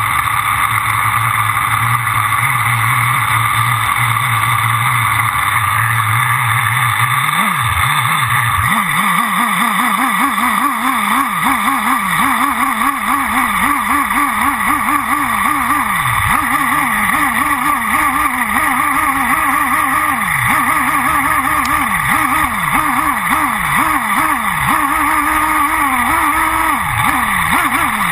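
OS V-Spec 3.5 cc (.21) nitro engine of a Thunder Tiger EB4S3 1/8-scale buggy, heard close up from on board. It idles steadily for about seven seconds, then revs up as the buggy pulls away, rising and falling quickly again and again as the throttle is worked around the track.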